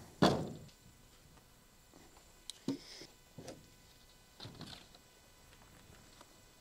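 Lumber being handled on a wooden trailer deck: a thump just after the start, then a few faint knocks and scrapes as 2x4 boards and a sheet of OSB are moved about.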